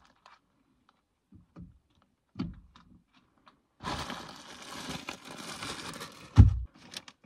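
A plastic bread bag crinkling and rustling for about two and a half seconds, ending in a single loud thump. A few faint knocks come earlier.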